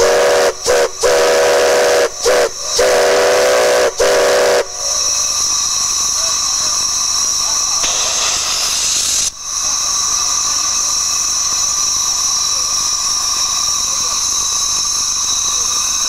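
Steam whistles on a whistle manifold: a deep chime whistle sounding several notes at once, blown in a run of short and longer blasts over the first four and a half seconds, over a steady high whistling and hissing steam. About eight seconds in, a louder rush of escaping steam lasts a little over a second.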